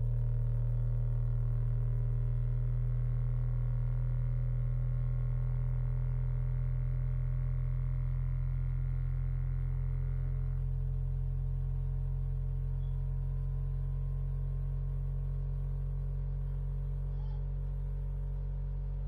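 Electric cotton candy machine running, its motor spinning the heated head with a steady hum. A higher, thinner part of the hum drops away about halfway through.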